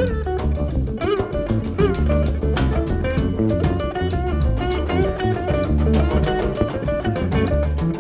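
Jazz band playing: guitar lines with bent, sliding notes over a steady bass line and drum kit.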